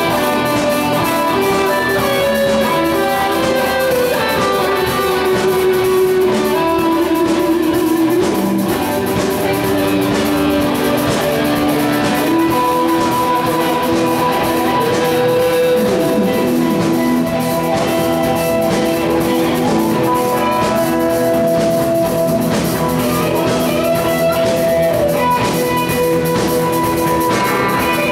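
Live rock band playing an instrumental: electric lead guitar carrying a melody of long held notes, with a few bent notes, over bass guitar, rhythm guitar and drum kit.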